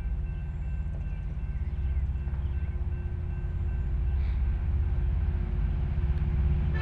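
Diesel locomotives of an approaching double-stack container train, led by an EMD SD70M, giving a low engine rumble that grows steadily louder as they near. The locomotive horn comes in at the very end.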